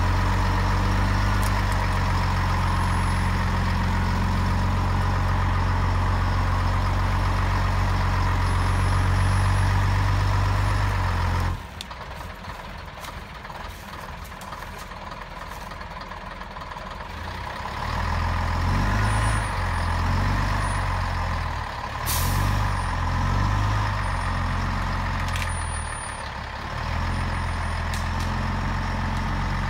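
TGB 30 military off-road truck's engine runs steadily at high revs, then drops off suddenly about eleven seconds in. From then on it revs up and down repeatedly as the truck crawls forward over rough forest ground.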